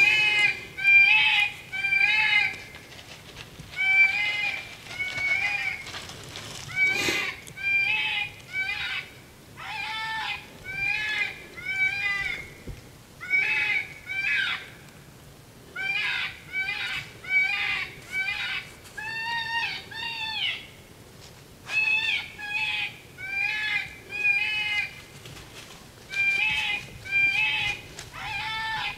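Predator call sounding rabbit distress squeals, used to lure in a coyote: short, wavering, pitched cries repeated about once a second, in runs broken by brief pauses.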